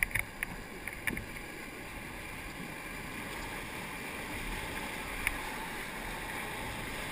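Whitewater rapids rushing beside a raft, a steady rush of water that slowly grows louder as the raft nears the drop. A few light knocks come in the first second or so.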